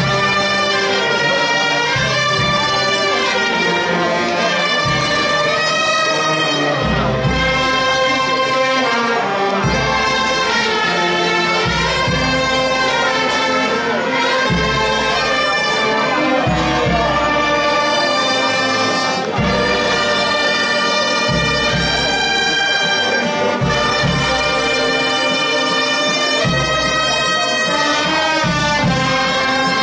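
A brass band playing music, with held wind melody notes over a bass line that moves every second or two.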